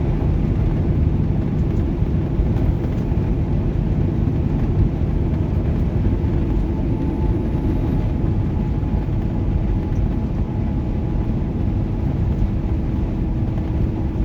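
Semi-truck running down the road, heard from inside the cab: a steady, loud low rumble of engine and road noise with a constant hum.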